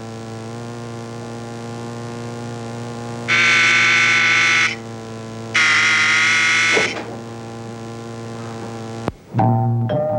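Apartment door-entry buzzer sounding twice, each buzz about a second and a half long, as the door is released from upstairs to let a visitor in. A steady electrical hum runs underneath, and a sharp click comes near the end.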